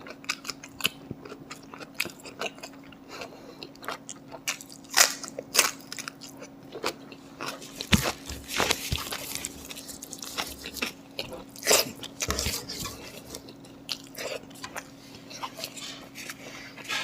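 A person chewing and biting food close to the microphone: irregular crunches and sharp mouth clicks, with a few louder bites scattered through.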